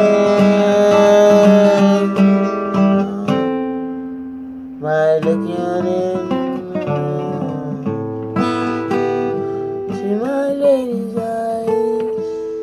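Acoustic guitar playing chords and single notes, with a man's voice singing long, wavering held notes over it. The playing thins out about three seconds in and comes back strongly about five seconds in.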